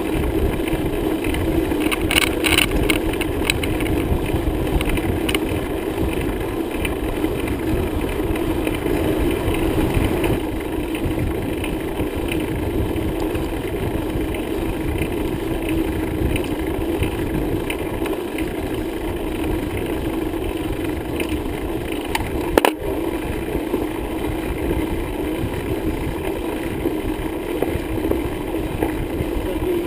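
Bicycle riding noise on the road: a steady rumble, with a few rattles a couple of seconds in and a single sharp knock near the end.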